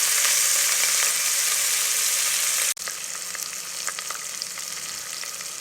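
Sliced onion sizzling in hot oil in a pressure cooker. A loud frying hiss drops abruptly a little under halfway through to a quieter sizzle with light clicks of stirring.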